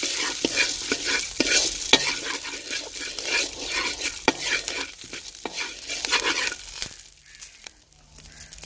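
Metal spoon stirring dried popcorn kernels in a little oil in a steel pan: the kernels rattle and the spoon scrapes and clicks against the metal. The stirring stops about seven seconds in.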